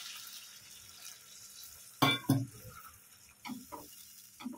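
Hot water poured into a pan of frying poppy-seed paste, the sizzle dying away over the first two seconds. Then two sharp clanks of utensils about two seconds in, and a few lighter knocks of a spatula stirring in the pan near the end.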